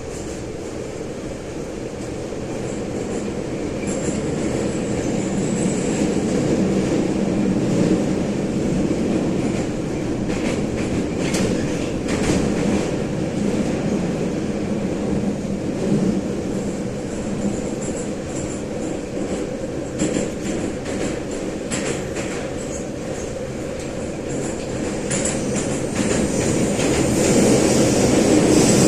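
Metro train of the St Petersburg-built 81-717/714 'numbered' type running at speed, heard from inside the passenger car. A steady rumble of wheels on rail carries scattered clicks of the wheels over rail joints. The noise grows louder over the first several seconds and swells again near the end.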